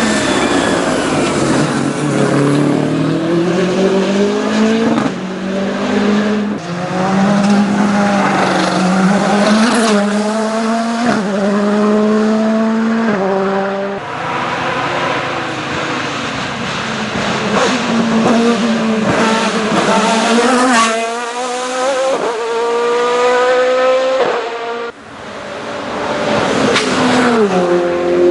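Racing car engines at full throttle, the pitch climbing through each gear and dropping sharply at every upshift, with falling revs where the cars slow for corners. Several cars follow one another with abrupt cuts between them.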